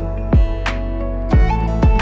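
Background music: sustained tones over a steady drum beat.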